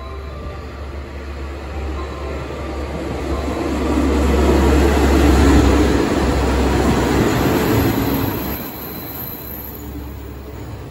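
KiHa 47 diesel railcar train passing through a station platform without stopping. Its engine drone and wheel noise build as it approaches, are loudest as the cars go by, then fade as it runs off.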